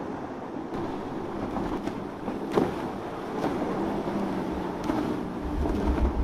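Outboard motors on center-console boats running at speed, a steady engine drone mixed with the rush of water from the hull and wake. Wind buffets the microphone near the end.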